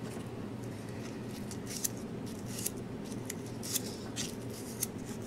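Small irregular ticks and scrapes as fingers bend a resistor's wire leads and handle hookup wire, over a steady low hum.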